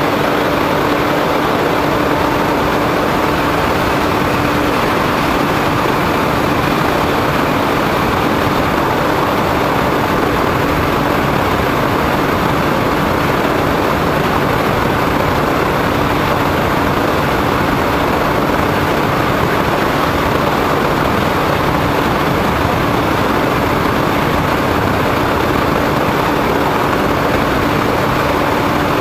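Steady drone of a foam RC plane's motor and propeller in flight, mixed with wind rushing over a camera mounted on its nose. The pitch holds level, with no change in throttle.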